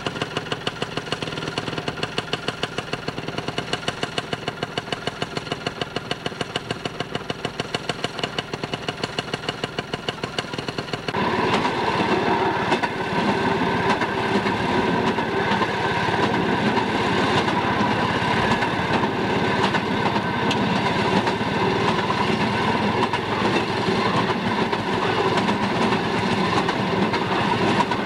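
A railroad motorcar's small engine running with a rapid, even beat. About eleven seconds in it switches abruptly to the louder, fuller noise of the motorcar under way on the rails, engine and track noise together.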